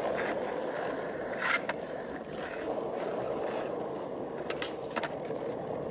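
Skateboard wheels rolling steadily over a textured court surface, a continuous gritty rumble broken by a few sharp clicks.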